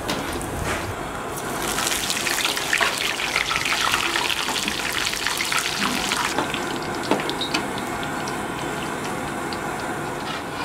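Curry leaves sizzling and crackling in hot deep-frying oil. A loud, dense spattering sizzle rises about two seconds in, then settles after about six seconds into a lighter crackle with scattered pops.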